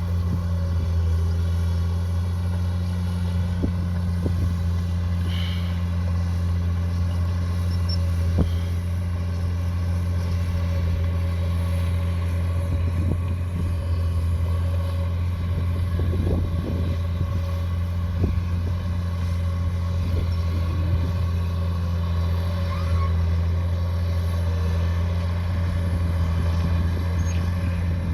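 Bulldozer's heavy diesel engine running steadily, with scattered knocks and clanks now and then.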